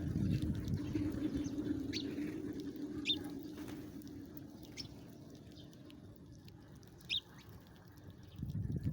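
Small birds giving scattered single short chirps, about four of them spaced a second or more apart, the clearest about 3 and 7 seconds in. Under them a low rumbling noise fades out by about halfway.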